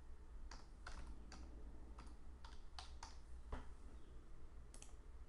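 Faint computer keyboard typing a date into a form field: about ten separate keystrokes over the first three and a half seconds, then a single click near the end.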